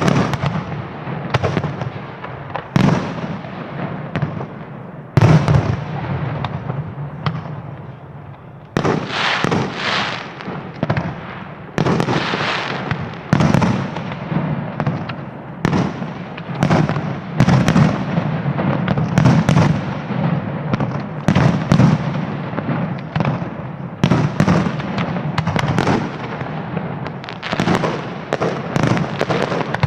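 Aerial fireworks display: shells bursting in quick succession, many sharp bangs often less than a second apart, with stretches of crackling between them.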